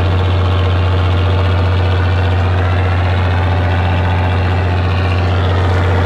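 Steady low drone of a fishing boat's engine running.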